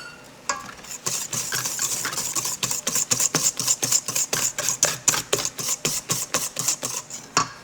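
Whisk beating sugar into egg yolks in a bowl: quick, even clicking strokes, about four or five a second, starting about a second in and stopping near the end.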